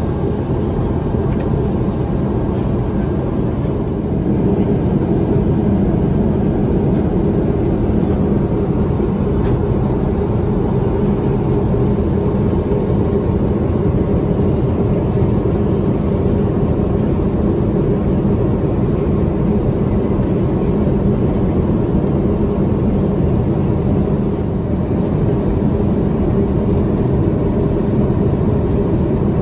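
Steady cabin noise of an Airbus A350-900 in flight, heard inside the cabin. It is an even, deep rush of airflow and the Rolls-Royce Trent XWB engines.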